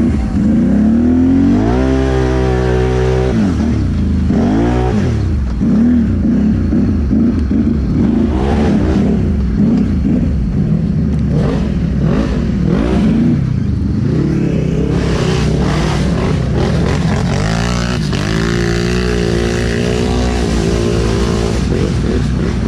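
ATV and side-by-side engines revving in a mud bog. Their pitch climbs and falls again and again over a steady low engine note.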